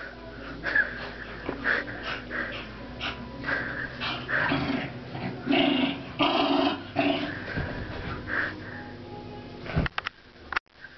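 Two dogs, a beagle and a mixed-breed mutt, play-wrestling, with a string of short growls that is loudest a little past the middle.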